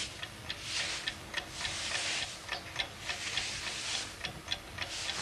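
Mechanical wind-up alarm clock ticking quickly and evenly. Bursts of bed linen rustling come and go as the bedding is smoothed and shaken.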